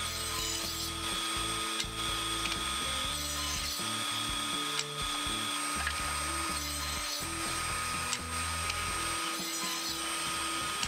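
Table saw running steadily while ripping a glued-up panel of maple, cherry, walnut and ash into strips, with a constant whine and the hiss of the blade in the wood. Background music plays underneath.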